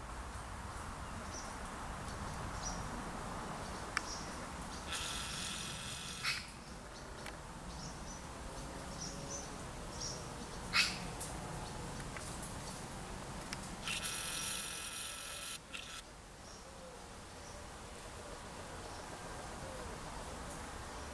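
Two bursts of insect buzzing, each about a second and a half long, starting and stopping abruptly, about five and fourteen seconds in. Between them come a few short faint chirps, a sharp click near the middle, and a low steady rumble of handling or wind.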